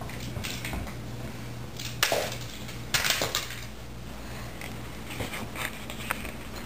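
Rustling and light knocking of a pop-up nylon play tent as a toddler moves about inside it, loudest about two and three seconds in, over a low steady hum.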